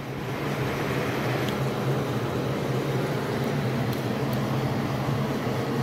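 Steady low hum of a running motor: the compressor filling the PCP air rifle's air reservoir.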